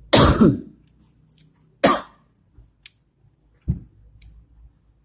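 A person coughing and clearing their throat three times: two loud coughs in the first two seconds, then a smaller one near the end.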